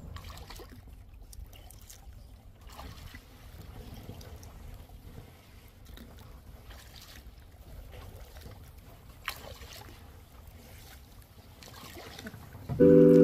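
Kayak paddling on calm water: water trickling and dripping off the paddle, with a few faint splashes over a low rumble. Background music comes in just before the end.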